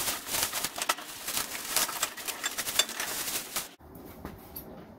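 Clear plastic wrap crinkling and rustling as it is pulled off a portable gas grill, stopping abruptly about three and a half seconds in.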